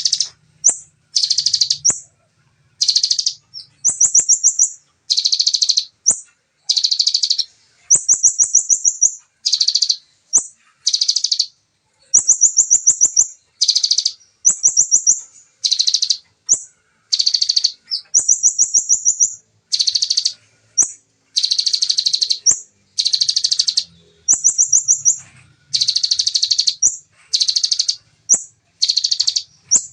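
Ciblek (bar-winged prinia) singing in rapid-fire high, buzzy bursts of about half a second to a second each, one after another with short gaps. Some bursts are very fast trills of repeated notes.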